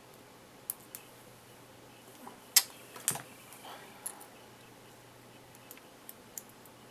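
Lock pick and tension wrench working inside a padlock's keyway: scattered small metal clicks and ticks, the loudest two close together about two and a half and three seconds in.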